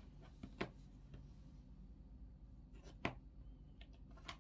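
Faint, scattered clicks of plastic Lego pieces being handled and pressed together, the clearest about half a second in and about three seconds in.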